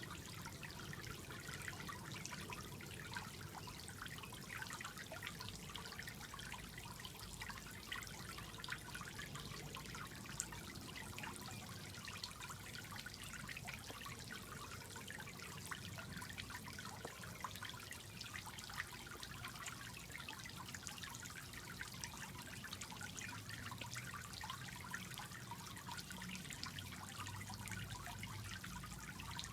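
Water trickling and dripping steadily from a Tetra Pond filter's outflow into pool water, with many small drips throughout.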